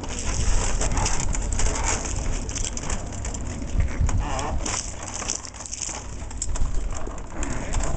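Human-powered plywood walking machine with a bicycle-crank drive moving under pedal power, its wooden legs and bolted joints giving irregular clattering knocks and clicks with a few creaks, over a steady low rumble.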